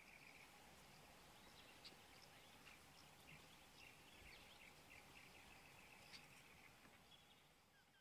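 Faint bird calls: a rapid trill of short chirps, heard twice, with a few sharp higher notes between, over a faint background hiss.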